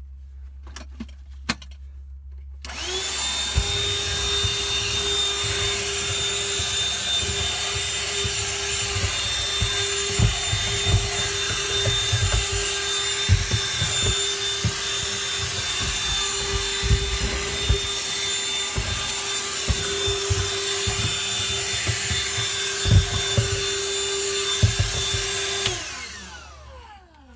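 Black & Decker handheld vacuum switched on about three seconds in and running steadily with a high whine, cleaning up debris, with irregular knocks underneath. It is switched off near the end, the whine falling away as the motor spins down.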